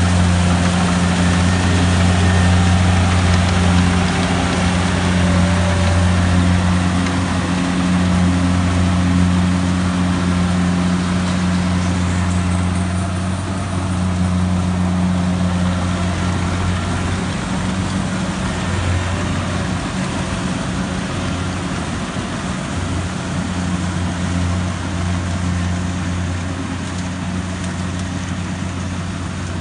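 Kubota DC-70G combine harvester's diesel engine running steadily under load while it cuts and threshes rice, with the noise of the cutting and threshing works over the engine hum. It grows gradually fainter as the machine moves away.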